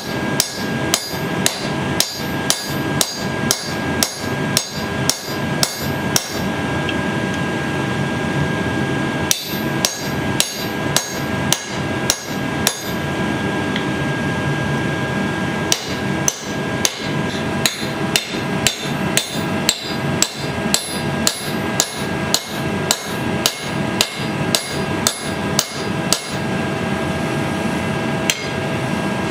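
Blacksmith's hand hammer striking red-hot steel on an anvil, each blow ringing sharply, at about two blows a second. The blows come in runs with pauses of a few seconds between them, over a steady background hum. Partway through, the hammer strikes a handled tool held on the hot bar.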